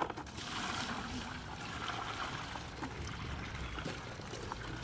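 Water pouring and splashing out of a tipped wet/dry shop vac tank onto gravel as the full tank is emptied.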